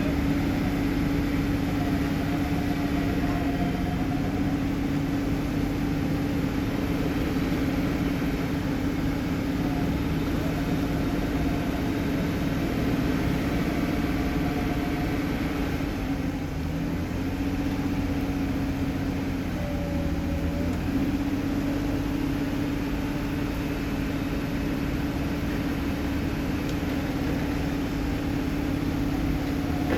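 Off-road vehicle engine running steadily at low revs, with a brief shift in its note a little past the middle.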